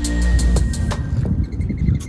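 Background electronic music with a steady beat of about four strokes a second. It fades out a little past the middle, leaving a low rumble.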